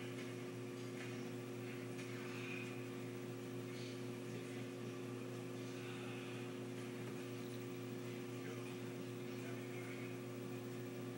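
A steady low electrical hum, unchanging throughout, over faint room hiss.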